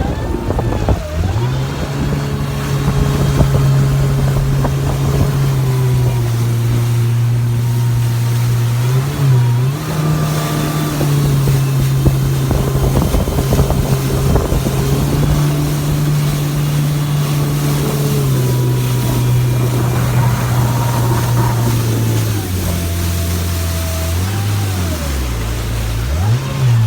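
Jet ski engine running at speed, its pitch mostly steady, dipping briefly and rising again as the throttle is eased and reopened, twice: once about a third of the way in and again near the end.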